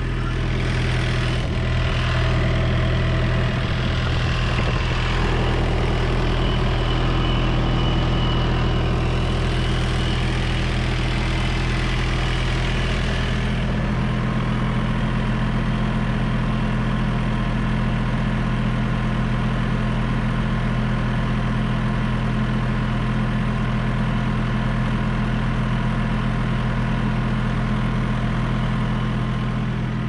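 Thermo King trailer refrigeration unit running with a steady engine drone. Its sound shifts a little about halfway through, losing some of its deepest and highest parts.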